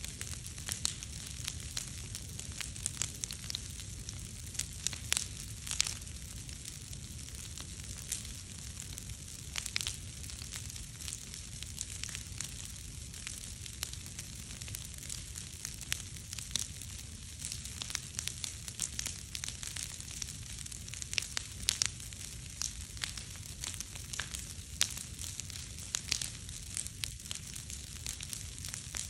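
Large log bonfire burning, with frequent irregular sharp crackles and pops over a steady low rush.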